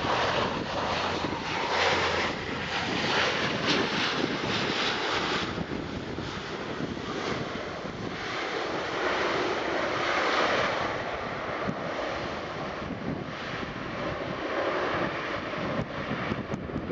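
Boeing 757-200 jet engines at takeoff power during the takeoff roll and lift-off, a steady rushing noise with no clear pitch, mixed with wind buffeting the microphone.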